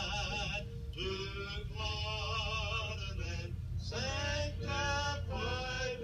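A man singing slowly, holding long notes with a wavering vibrato in short phrases, over a steady low hum.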